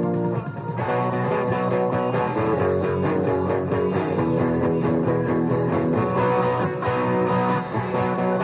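Hollow-body electric guitar being played, a tune of changing single notes and chords.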